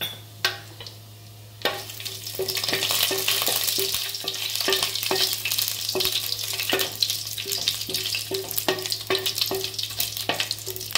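Whole spices (bay leaves, cinnamon, cardamom, fennel) sizzling in hot oil and ghee in a stainless steel pot. The sizzle jumps up about two seconds in as more spices go in, and a wooden spatula stirs them, knocking against the steel pot about twice a second.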